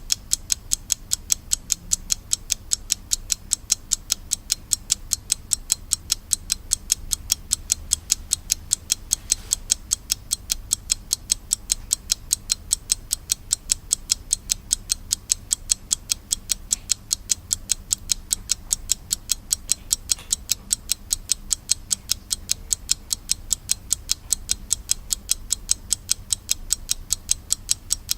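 SLAVA mechanical alarm clock ticking: a steady, even run of sharp, bright ticks, several a second, from its escapement.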